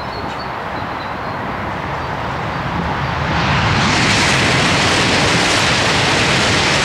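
Eurostar e320 high-speed electric train approaching and passing at speed: a rushing noise that builds over the first few seconds and turns loud and steady about three and a half seconds in as the train sweeps by.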